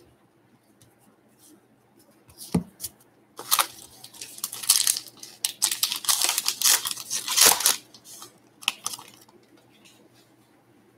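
A trading-card pack wrapper being torn open and crinkled: a short tear about two seconds in, then several seconds of tearing and crinkling, and a last crinkle near the end.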